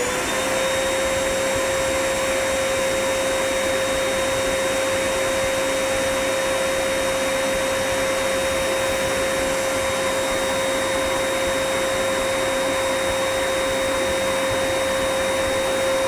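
Electric air blower running at full speed: a steady motor whine over a rush of blown air, the pitch settling at its top just as it finishes spinning up at the start.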